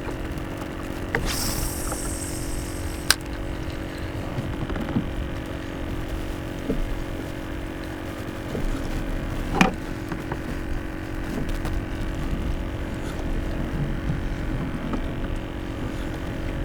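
A cast with a spinning reel: line whooshes off the spool for about a second and a half, then a sharp click comes as the bail closes. A steady hum runs underneath, and a single knock sounds about halfway through.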